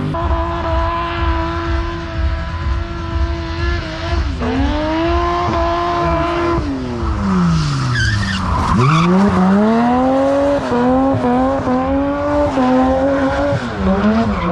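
Drift car engine held at high revs, dipping briefly about four seconds in, then falling steeply in pitch and climbing again in steps, with tyres squealing as the car slides.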